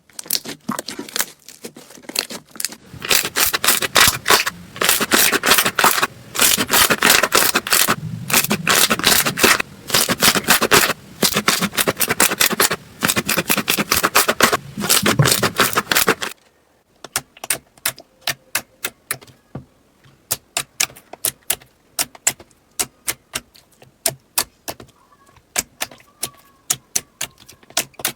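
Slime being squeezed and poked by hand, making sharp clicking and sticky crackling pops. The pops are dense for the first half, then after an abrupt cut there are only sparser single clicks.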